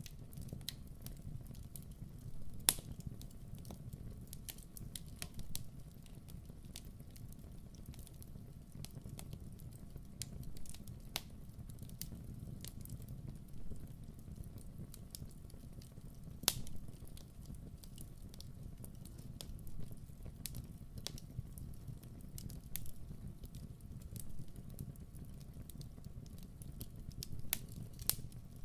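Wood fire burning in a fireplace: irregular crackles and sharp pops over a steady low rumble of the flames, with a louder pop about three seconds in and another past the middle.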